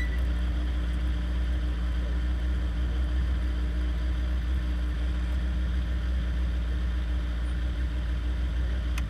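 Radical open-cockpit race car's engine idling steadily at about 1,800 rpm in first gear as the car rolls slowly to a stop, with a single click near the end.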